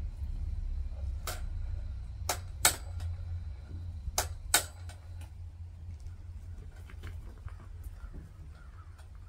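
Wood-Mizer BMS250 bandsaw blade sharpener running: a steady low motor hum with a few sharp clicks in the first half, two of them close pairs about two seconds apart, then lighter ticks.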